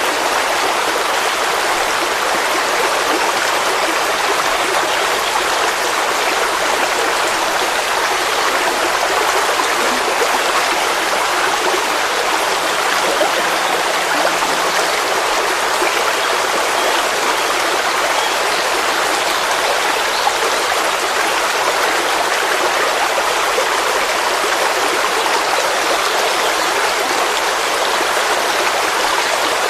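Forest stream flowing steadily, a continuous rush of water.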